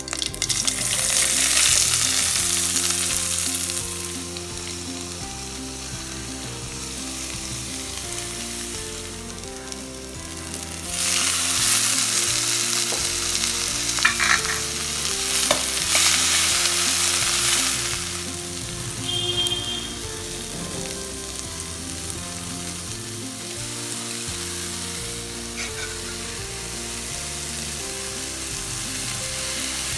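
Chopped onions hitting hot tempering oil in a metal kadai give a loud burst of sizzling at the start, which settles to a steady frying sizzle with stirring. About eleven seconds in, a second loud burst of sizzling comes as chopped tomatoes and green chillies go into the pan.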